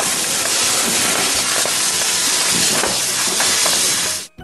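Steady, loud hiss of water jetting from a fire hose, with faint crackles mixed in. It cuts off suddenly just before the end.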